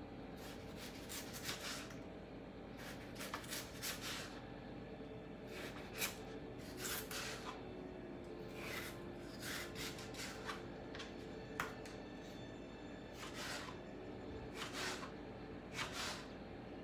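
Kitchen knife slicing raw peeled potatoes into fries on a cutting board: irregular crisp cuts and taps of the blade on the board, some single and some in quick runs, over a low steady hum.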